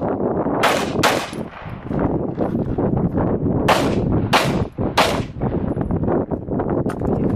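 Handgun fired in a USPSA stage: two quick shots about half a second in, then after a pause a string of three shots roughly two-thirds of a second apart, over a steady low rumbling background noise.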